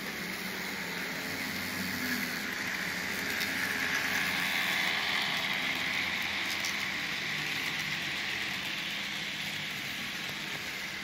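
Model electric train running on sectional track: a steady rumble of wheels and motor that swells as the freight cars pass close by about halfway through, then slowly eases off.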